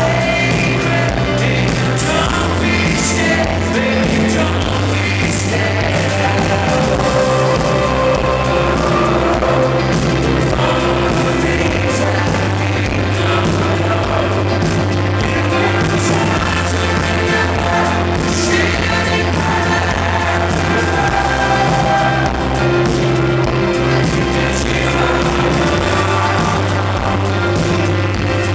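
A live pop-rock band playing through a concert PA, with a male lead vocal over piano, drums and sustained bass notes that change every few seconds, heard from within the audience.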